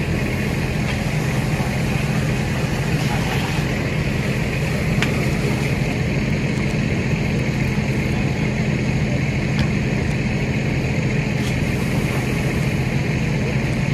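Fire apparatus diesel engine running at a steady high idle, driving the pump that feeds the hose lines, with a few faint clicks over it.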